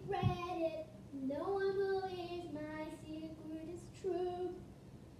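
A young girl singing unaccompanied, in about four short phrases with held notes, the pitch sliding up about a second in.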